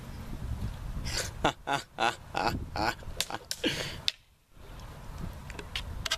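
Fencing sabres clashing and striking in a quick exchange: a run of sharp hits, several a second, starting about a second in and stopping just before the four-second mark.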